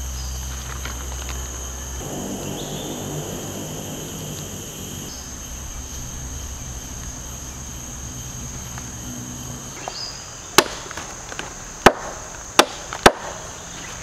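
Steady high drone of rainforest insects, with four sharp knocks of wood being struck near the end, the loudest sounds here.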